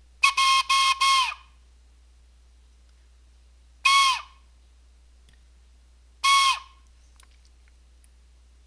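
Morse code sent as blown, whistle-like notes at one steady pitch. A quick group of four short notes comes first, then two single longer notes about two and a half seconds apart. Each note sags in pitch as the breath stops.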